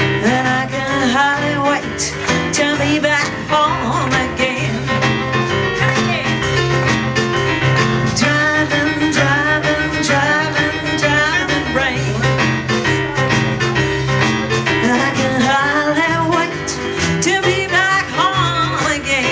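Live blues band playing: digital stage piano, upright double bass and drum kit, with a woman singing with vibrato over a steady walking bass line.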